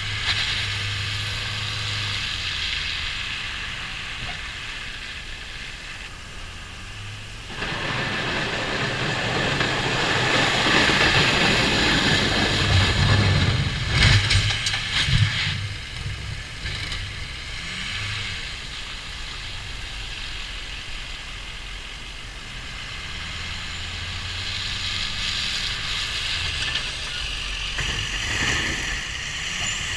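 A 2006 Ford F250's 6.0 Powerstroke diesel runs as the truck plows snow with a Fisher blade. From about a third of the way in, a loud rushing scrape lasts several seconds as the blade pushes snow, with a few knocks about halfway. Near the end the engine grows louder as the truck drives past close by.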